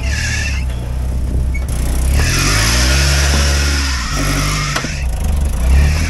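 Off-road vehicle's engine revving under load while crawling over rock, rising in pitch about two seconds in and dropping back a couple of seconds later, with a hiss that comes and goes over it.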